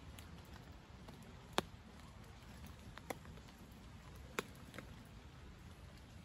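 Faint low outdoor background with four isolated sharp ticks or pops, the loudest about a second and a half in.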